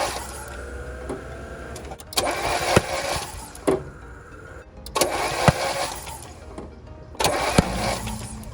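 Starter cranking a 1991 Mazda Miata's 1.6-litre four-cylinder in three short bursts without it catching. It is a crude compression check with paper towel stuffed in the spark plug holes, on an engine suspected of low compression after overheating.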